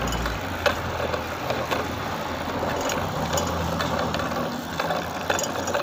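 Steady hum of a running vehicle engine, with scattered light clicks and rattles from a child's bicycle being handled.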